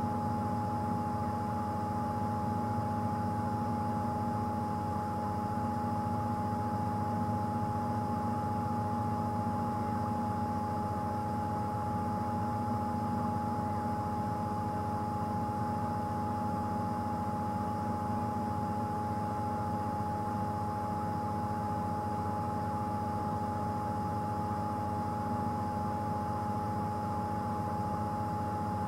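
Steady rush of the waterfall that splashes the nest ledge, with a constant mid-pitched whine and a low hum over it.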